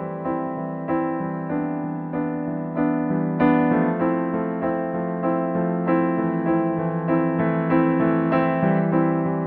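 Piano music: a gentle keyboard melody over held chords, new notes struck about twice a second.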